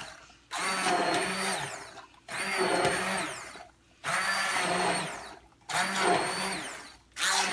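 Cuisinart immersion blender running in a saucepan of cooked chunky cauliflower and vegetable soup, pulsed on and off in short bursts of about a second and a half, five in all. The motor's whine rises as each burst starts and drops away as it stops, while the blade churns the soft vegetables into a purée.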